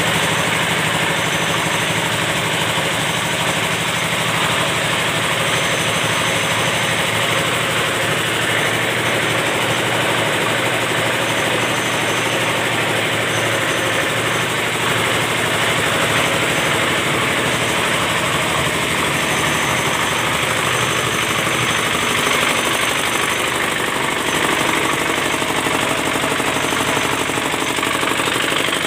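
Stationary single-cylinder diesel engine that drives a soybean grinder, running steadily at a constant speed.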